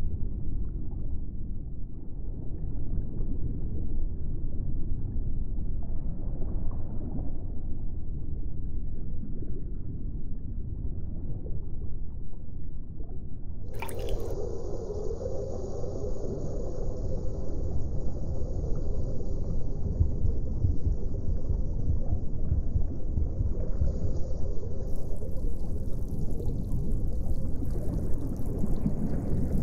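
Low, rumbling watery ambience of liquid gurgles and drips with no speech. About halfway through a sudden click brings in a steady low hum and a high hiss, which grows brighter near the end.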